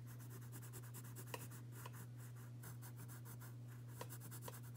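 Pencil shading on paper: faint scratchy strokes as a petal is coloured in, with a few light ticks, over a steady low hum.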